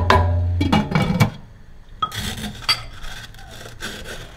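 Stainless steel stockpot and its glass lid: the lid lifted with a ringing clang and a wooden spoon scraping against the inside of the pot, then a shorter scrape about two seconds in and a few light clinks as the lid is handled.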